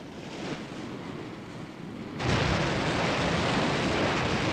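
Animated-film sound effect of water rushing in to flood a ship's dock: a deep, steady rushing noise that jumps sharply louder about two seconds in.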